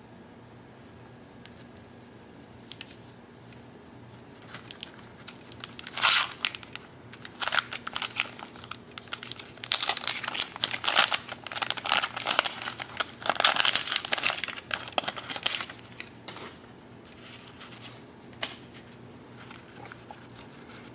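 Wax paper wrapper of a 1990 Donruss baseball card pack being torn open and crumpled. The crackly tearing and rustling starts a few seconds in, comes in a run of bursts through the middle, and dies away to a few faint rustles near the end.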